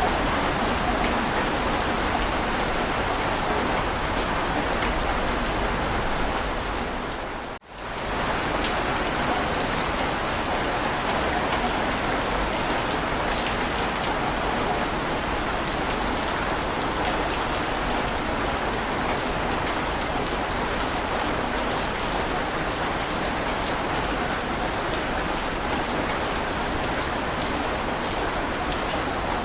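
Heavy rain falling steadily, an even hiss of drops. About seven seconds in it fades briefly to near silence and comes straight back.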